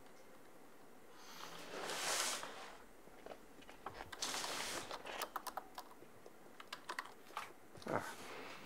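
Typing on a computer keyboard in quick runs of key clicks. Two short swells of hissing noise come before and during the typing, and a sharp louder knock comes near the end.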